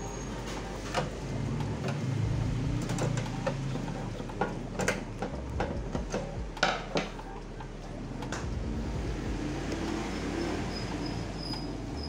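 Screwdriver turning a screw into a microwave oven's sheet-metal casing, with scattered metallic clicks and knocks that come thickest in the middle.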